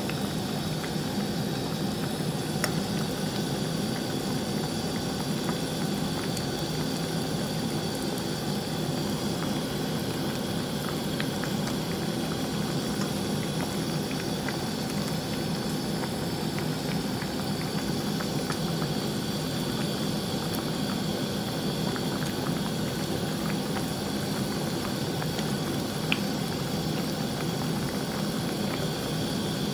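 Pot of sinigang broth boiling, a steady bubbling with small scattered pops, over a steady low hum.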